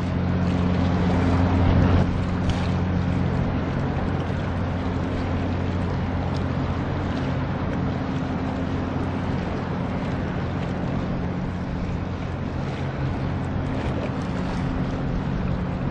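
Low, steady drone of a ship's diesel engine under a hiss of wind and water.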